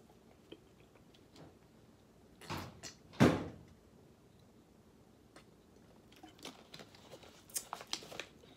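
Plastic water bottle being handled and drunk from, with two short noises about two and a half and three seconds in, the second the loudest. Faint scattered clicks follow near the end as the cap is worked with both hands.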